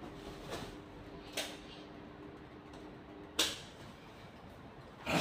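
A few short, sharp household handling knocks and swishes, the loudest a little over three seconds in. A faint steady hum underneath stops at that moment.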